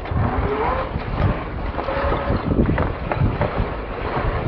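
Traxxas TRX-4 RC crawler driving over rough dirt, heard from a camera mounted on the car: a steady rumble with wind on the microphone and frequent small knocks and crunches as the tyres and chassis bounce over the ground, under a faint wavering whine from its Hobbywing Quicrun Fusion brushless motor.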